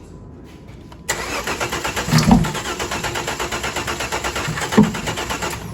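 Starter cranking the 2009 Dodge Charger's 2.7 V6 with the gas pressed, an even rapid churning that begins about a second in and stops abruptly near the end without the engine catching. Twice it gives a louder cough back out of the intake, which the mechanic takes as a sign the engine may have a timing issue.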